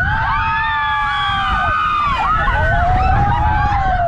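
Many riders on a swinging pirate ship ride screaming together in long, overlapping, held screams that bend in pitch, over wind rumble on the microphone.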